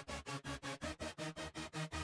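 Background electronic music with a fast, even pulse of about six beats a second.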